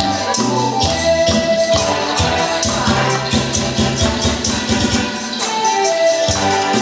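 Music playing, with held melody notes over a steady jingling percussion beat.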